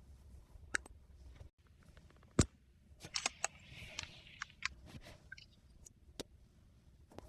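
Scattered small clicks and taps of tools and parts being handled during a phone repair, with a brief scratchy stretch in the middle.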